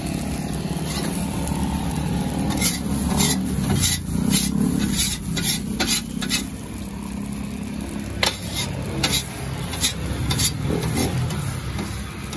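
Metal spatulas scraping, chopping and turning fried rice on a flat stainless-steel griddle: irregular clinks and scrapes of steel on steel, busiest in the first half, over the sizzle of the frying rice and a steady low hum.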